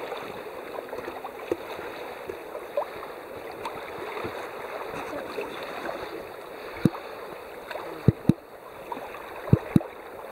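Water rushing and gurgling along a sailboat's hull as it sails. Several short sharp thumps come in the second half, the loudest near the end.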